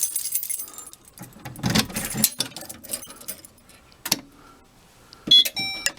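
Rattling and clatter of a Fire-Lite BG-12L manual pull station being handled and pulled, with a sharp click a little after four seconds. About a second later the fire alarm system goes into alarm, its notification appliances sounding in short repeating high electronic beeps.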